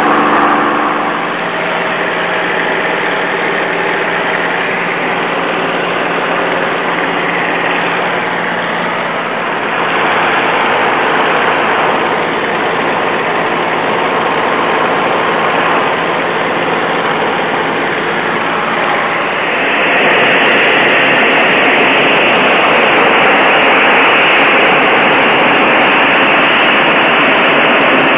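Curtiss P-40 fighter's V-12 piston engine and rushing airflow heard from inside the cockpit, running hard through the takeoff run and climb. It gets louder about twenty seconds in.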